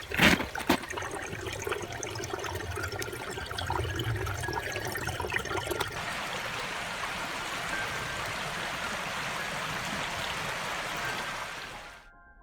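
Spring water trickling and running out of the rocks, a steady rushing that cuts off suddenly near the end. A few sharp knocks at the very start.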